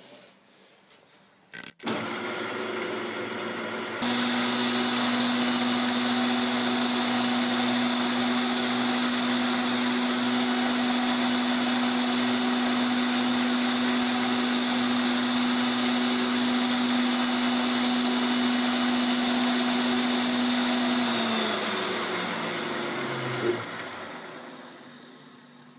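Tool post grinder with a 60-grit silicon carbide wheel running at a steady high whine while grinding the end of an R8 tool shank turning in the lathe. A quieter machine starts about two seconds in and the grinder starts about four seconds in. Near the end the grinder is switched off and winds down, its pitch falling.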